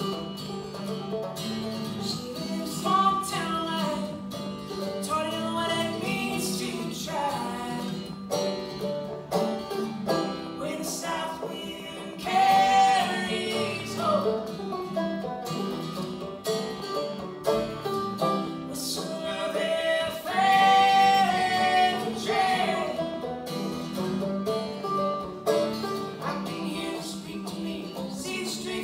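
Live acoustic folk duet: a man and a woman singing together to banjo and acoustic guitar. The voices rise to louder held notes about twelve seconds in and again about twenty seconds in.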